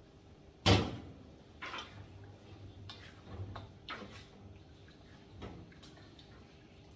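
Kitchen knocks and clatter: one sharp knock about a second in, then a scattered string of lighter knocks and clicks.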